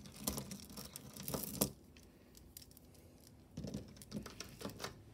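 A thin plastic jewellery bag crinkling and rustling as a metal necklace is pulled out of it, with a few light clicks. After a short quiet spell, soft bumps as the necklace is handled and laid down on the table.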